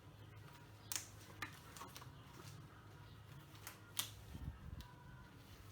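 Scattered light clicks and taps from small objects being handled, the sharpest about one second in and about four seconds in, over a steady low hum.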